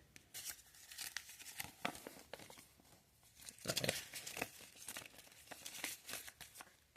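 Faint rustling and crinkling of paper, with scattered light clicks, as a K'nex instruction booklet is fetched and handled.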